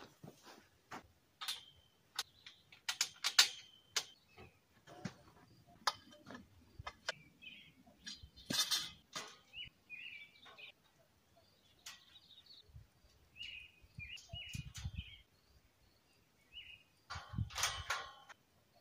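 Metal greenhouse frame tubes clanking and knocking irregularly as they are handled and fitted together, with a louder clatter three times. Birds chirp in the background.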